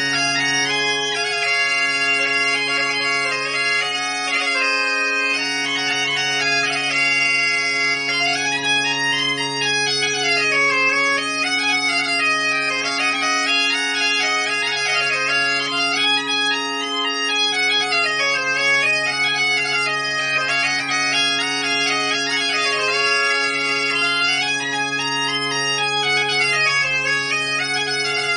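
Gaita bagpipes playing a xota valseada, a jota tune in waltz time: a lively chanter melody over a steady drone that never stops.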